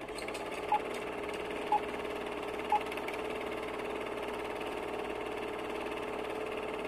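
Film projector sound effect: a steady mechanical whir, with three short beeps a second apart in the first few seconds, like a film countdown leader.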